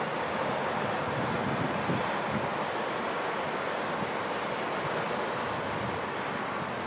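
Steady rushing noise of wind buffeting the microphone, with no separate firework bangs standing out.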